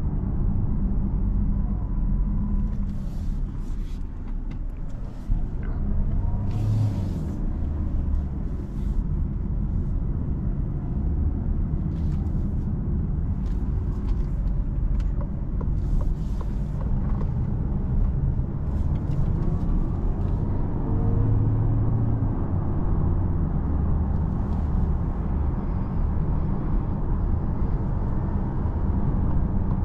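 Cabin noise of a Citroen C5 Aircross plug-in hybrid SUV on the move: a steady low rumble of tyres and drivetrain, with brief scattered ticks now and then in the first two-thirds.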